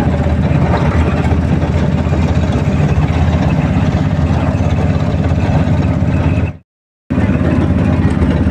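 Engine of a moving road vehicle running steadily, heard from inside the cab, with road and tyre noise. The sound cuts out for about half a second around six and a half seconds in, then carries on.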